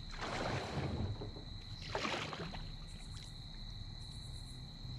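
Kayak paddle strokes swishing through the water, two of them, one at the start and one about two seconds in, then quieter. A steady high-pitched tone sounds behind them throughout.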